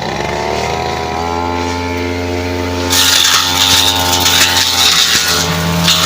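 Brush cutter's small engine revving up in the first second, then running steadily at high speed; about halfway through, a harsher hissing, crackling noise joins over the engine.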